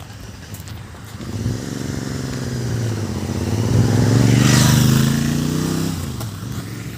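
A motorcycle engine passing by on the road. It grows louder from about a second in to a peak in the middle, its pitch shifting, then fades away near the end.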